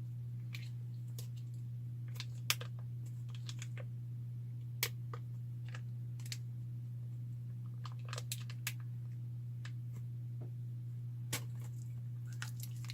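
Hands working a runny hair mask through hair: scattered, irregular soft clicks and crackles, over a steady low hum.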